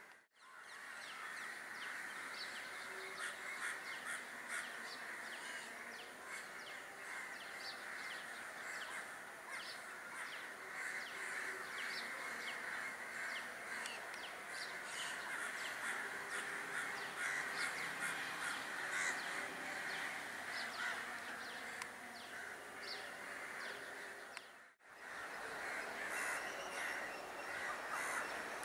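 Crows cawing, many calls overlapping in a continuous chorus, with a brief sudden drop-out near the end before the calls resume.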